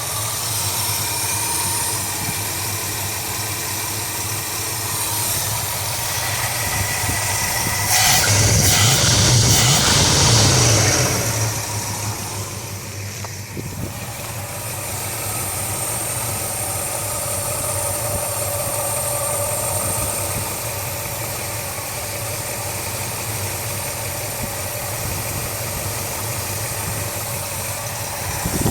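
Ford 400 V8 in a 1976 Mercury Marquis idling roughly, fed by a Motorcraft 2150 two-barrel carburetor. The idle is bouncy like a misfire, which the owner traced to low compression on one cylinder. About eight seconds in there is a louder stretch of about three seconds with added hiss.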